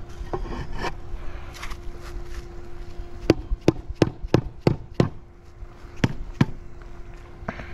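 A replacement marble paver is set down into its gap with a few light knocks, then a red rubber mallet taps it down into place: six quick knocks about three seconds in, then two more a second later.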